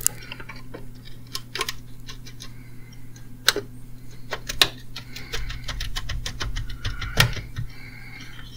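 Plastic clicks and taps as a new EVAP vent valve solenoid is pushed and slid into place on the charcoal canister, with a few sharper clicks about three and a half, four and a half and seven seconds in, over a steady low hum.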